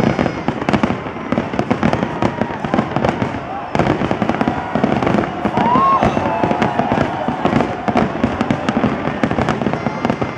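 Large fireworks display: many aerial shells bursting in a dense, continuous barrage of bangs and crackles.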